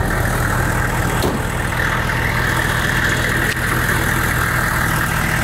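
Hummer H1's Duramax V8 turbo-diesel idling steadily.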